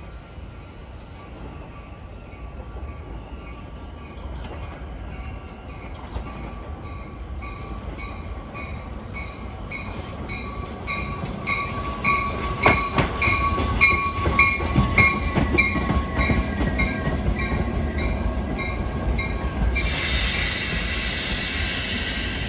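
Metra commuter train pulling into the station, growing steadily louder. A steady squeal and a quick, evenly spaced ringing of about two strikes a second run through it, wheels knock over the rail joints about halfway in, and a loud hiss sets in near the end.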